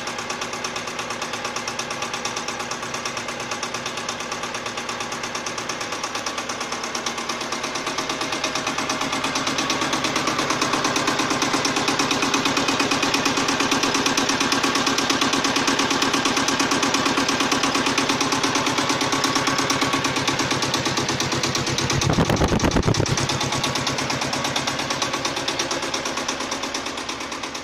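Shibaura SU 1341 compact tractor's engine running with a fast, steady clatter, growing louder about a third of the way in, with a brief deeper surge near the end.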